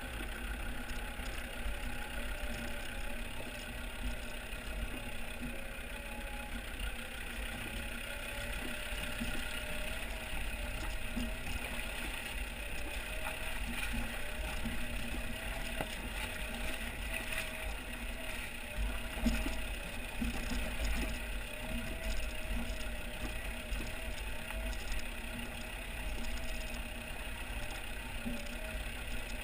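Land Rover Discovery TD5's five-cylinder turbodiesel running steadily at low revs as the vehicle crawls over loose rock and mud, picked up by a camera mounted outside beside the front wheel, with a low rumble under it and a single louder bump a little past halfway.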